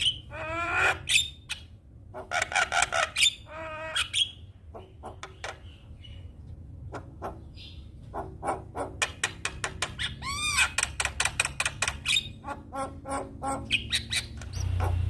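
Javan myna singing: rapid runs of clicking notes mixed with harsh, chattering calls, with a single arched whistle about ten seconds in.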